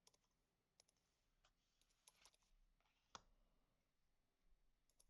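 Faint clicks and light scraping of Pokémon trading cards being handled and flipped through one by one, with a sharper click about three seconds in.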